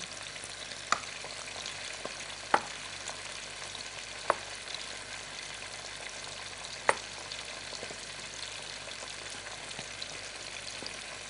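Hot oil sizzling steadily as mushrooms fry in a pan, with four sharp taps of a chef's knife on a wooden cutting board as green olives are sliced.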